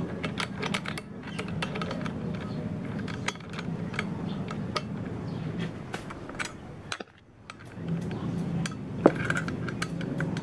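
Irregular small metal clicks and clinks from tools and parts being handled while the bolts of a chainsaw attachment are tightened bit by bit, over a steady low hum. One sharper click comes near the end.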